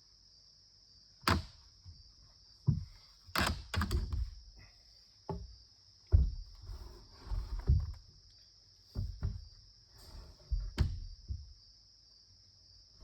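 Irregular knocks and thuds, a dozen or so spaced unevenly, some with a sharp click, over a steady high insect drone.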